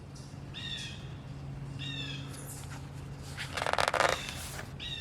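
Birds calling: a few short, high, slightly falling calls, and a louder harsh call about three and a half seconds in.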